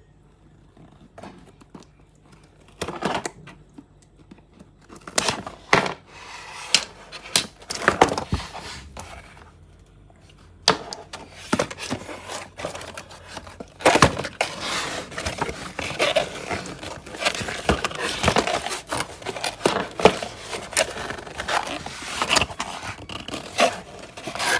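A toy's packaging being handled and opened by hand, with irregular clicks and scrapes. They are sparse at first and come almost without a break from about ten seconds in.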